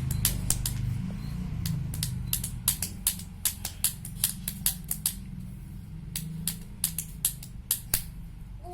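Irregular sharp clicks and taps of hard objects, a few a second, over a steady low hum.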